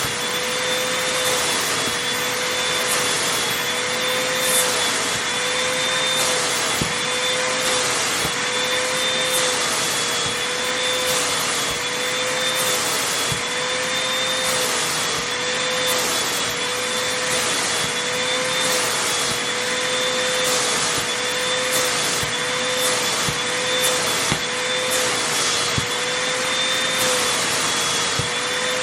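Vacuum cleaner motor running steadily with a constant whine, its nozzle drawn back and forth over fabric in a rhythmic swish that repeats about once a second.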